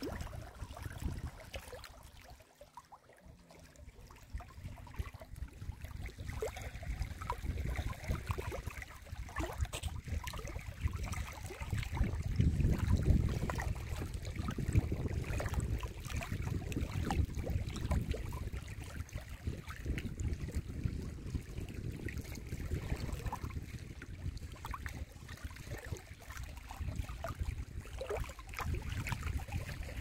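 Small lake waves lapping and splashing against a rocky shore, a steady wash of water with many small splashes and a quieter lull about two to four seconds in.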